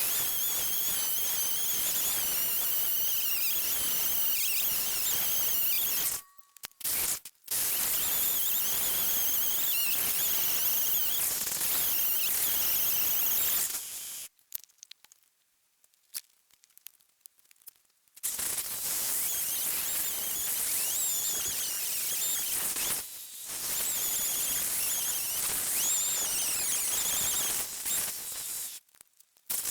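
Gas chainsaw running at high revs and cutting, its pitch wavering with the load. It stops briefly about six seconds in, and again for about four seconds midway.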